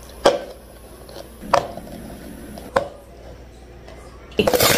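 Three sharp knocks about a second apart as clear plastic cups are set down on a wooden counter and filled with tapioca pearls, then a loud, dense clatter near the end.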